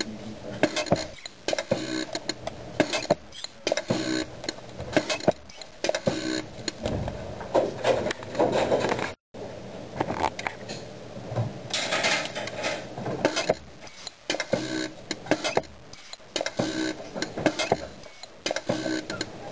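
Packaging machine running through its cycle, with repeating clacks and clicks and a recurring short hum. There is a brief dropout about nine seconds in.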